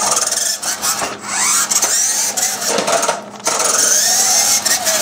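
The battery-powered electric drive motor and gearbox of a vintage Radio Shack Tormentor RC monster truck are running as it drives. Its whine rises and falls, and it cuts out briefly about three and a half seconds in.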